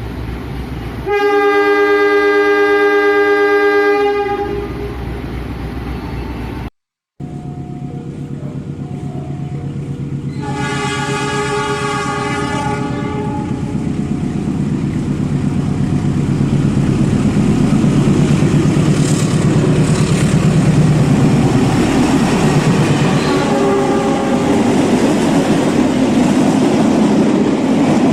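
A train horn sounds one long blast. After a short break, a second blast sounds, and then the rumble of a train running on the track builds up steadily louder.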